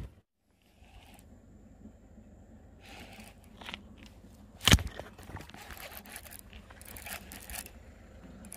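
Close handling noise from hands working fishing gear: scraping and rustling in short bursts, with one sharp click about four and a half seconds in.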